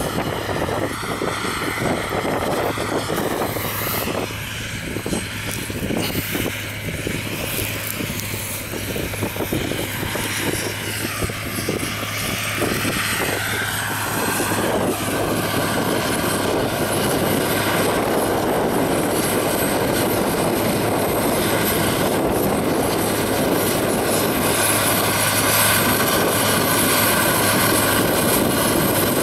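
Caterpillar Challenger MT865C tracked tractor's diesel engine running steadily while pulling a cultivator, with a steady low tone and a high whine over it. It grows louder over the second half as the tractor comes closer.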